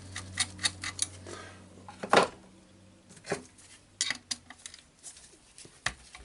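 Quick light metal clicks for about the first second, then a few separate metal clinks and knocks, the loudest about two seconds in. This is the shoe and bevel-lock screw of a DeWalt DCS331 cordless jigsaw being worked by hand and tested for play. A low hum underneath fades out about three seconds in.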